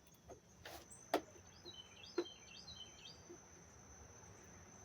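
Faint handling clicks of parts being worked on, a sharp one about a second in and another about two seconds in, with a small bird chirping a quick run of short high notes in the middle, over a steady high-pitched whine.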